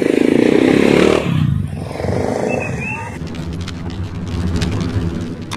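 Street-market noise with a motorcycle engine, loudest for the first second or so. About three seconds in it cuts to the outro's sound, a steady low hum with scattered sharp clicks.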